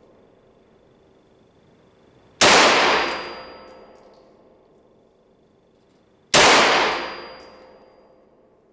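Two single shots from a Chiappa CBR-9 Black Rhino semi-automatic 9 mm Luger carbine, about four seconds apart. Each crack echoes for a couple of seconds in the enclosed shooting range.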